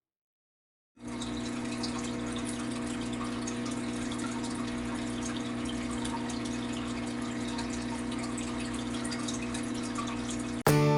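Aquarium filter pump running with a steady hum over moving, splashing water, starting about a second in.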